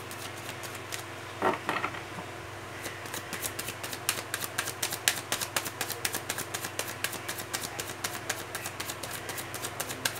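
A deck of tarot cards being hand-shuffled overhand, the cards clicking and slapping against each other in quick, irregular ticks. A brief louder sound comes about one and a half seconds in, over a steady low hum.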